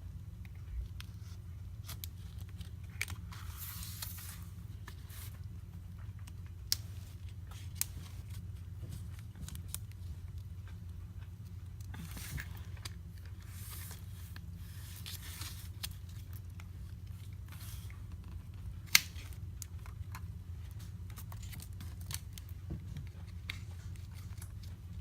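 Pry tool scraping and tearing through the softened adhesive under an iPad Pro's cracked glass screen, in a few short scratchy passes, with several sharp clicks, the loudest about three-quarters of the way through. A steady low hum runs underneath.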